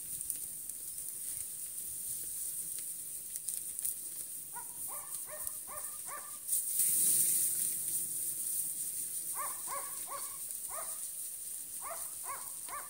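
A dog yelping in three short runs of three or four quick calls, over a steady high hiss.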